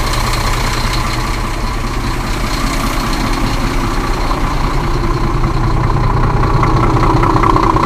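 Diesel engine of a semi-truck idling steadily while the air brake system builds pressure before moving off.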